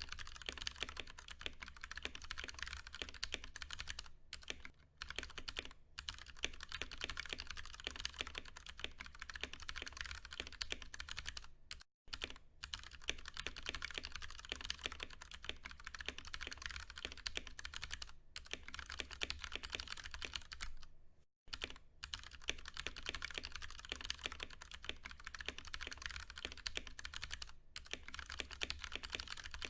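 Continuous fast typing on a Ducky One 2 Mini mechanical keyboard with Cherry MX Brown switches: a dense stream of key clacks with brief pauses, two of them near-silent gaps around 12 s and 21 s in.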